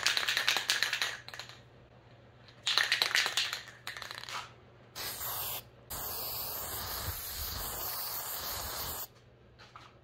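Aerosol spray-paint can: two bursts of quick rhythmic rattling as the can is shaken, then a short spray and a steady hiss of about three seconds as paint is sprayed.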